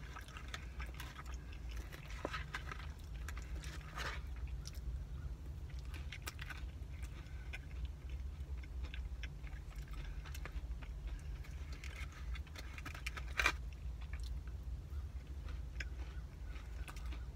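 Close mouth sounds of chewing a caramel pecan cinnamon roll, with small wet clicks and ticks over a steady low hum. A single sharp click stands out about thirteen seconds in.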